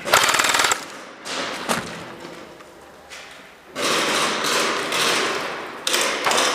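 Airsoft guns firing in rapid full-auto bursts: a short burst right at the start, then more sustained firing from about four seconds in.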